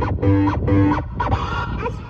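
Music played loud through a car audio system, with heavy bass and a distorted, guitar-like melody on top.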